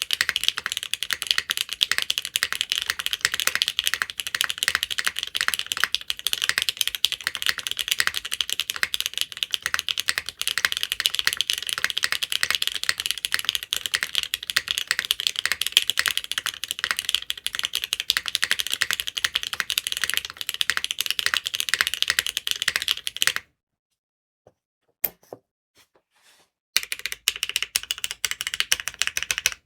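Fast typing on a TKD Cycle8 mechanical keyboard with lubed Gateron Milky Yellow Pro linear switches in a polycarbonate plate, gasket-mounted with no foam: a dense stream of key clacks. About twenty-three seconds in the typing stops for around three seconds, with only a few lone keystrokes, then picks up again.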